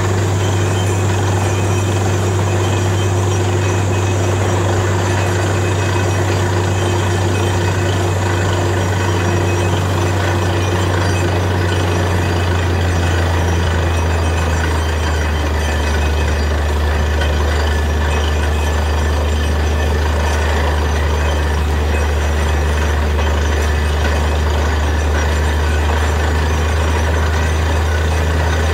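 Truck-mounted borewell drilling rig running under load: a heavy, steady engine drone over a rushing noise of compressed air blowing mud and cuttings out of the hole. The drone's pitch drops slightly about halfway through.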